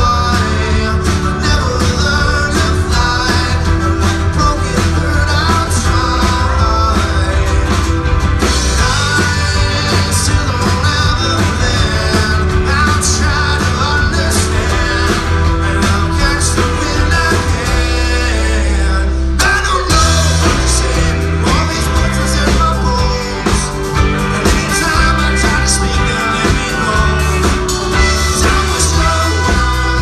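Live folk-rock band playing a song with singing, over acoustic and electric guitars, banjo, bass and drums. There is a short break about two-thirds of the way through, then the full band comes back in.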